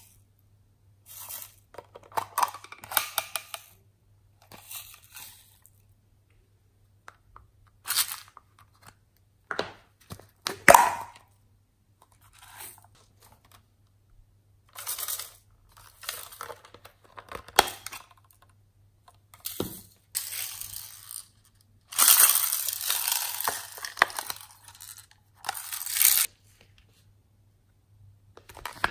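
Hands handling and clicking open small plastic toy containers and pouring their glitter and beads onto slime in a glass dish: a string of separate rustles, clicks and crackles, with the longest and loudest pour about two-thirds of the way through.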